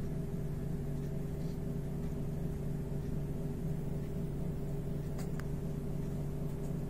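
A steady low mechanical hum that holds even throughout, with two faint clicks about five seconds in.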